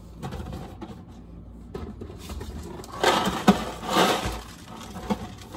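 Packaged groceries being handled and moved on a pantry shelf: packaging rustling with light knocks, loudest in two bursts about three and four seconds in.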